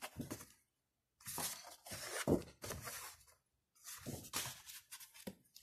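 Paper and card album inserts rustling and sliding against each other as they are handled, in several bursts of about a second each.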